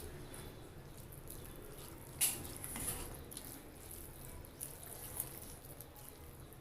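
Close-miked wet eating sounds of a person chewing a mouthful of curry and rice, with a sharp mouth smack about two seconds in and a few softer ones later.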